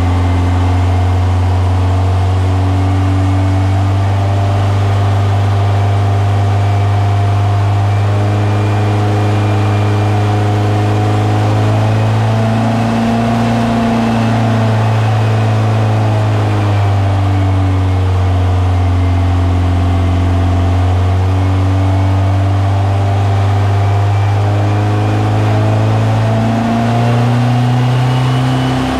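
Freshly built 1600cc VW air-cooled flat-four engine running steadily on a run stand, its pitch rising a little twice, about midway and near the end.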